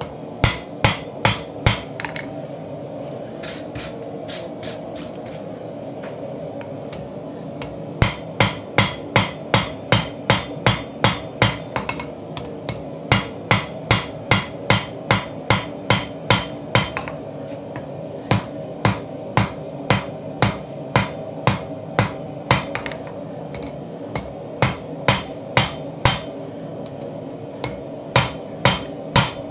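Hand hammer striking hot Damascus steel on an anvil, about two to three ringing blows a second in runs with short pauses between them, as the knife blank is thinned and drawn out. A steady roar runs underneath.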